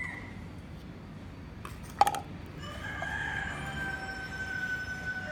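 A rooster crowing: one long held note that falls slightly in pitch, starting a little before halfway. Just before it comes a sharp click, the loudest moment.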